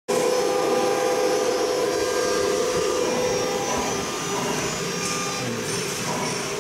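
Steady mechanical hum and whine of a running CNC wood router, its level easing slightly about four seconds in.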